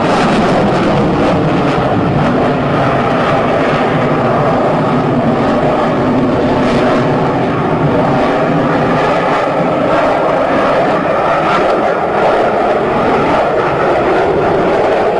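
Delta-wing fighter jet's engine noise during a flying pass: a loud, steady rush with faint steady tones in it and no let-up.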